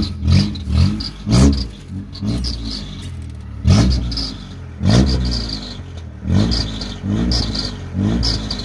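Honda car engine blipped in a dozen or so short revs, one after another, through a damaged exhaust. A rattle sounds under the car.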